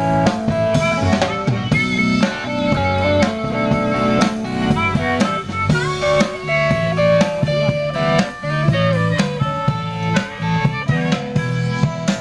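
Band music with a drum kit keeping a steady beat under guitar and melody lines, without singing.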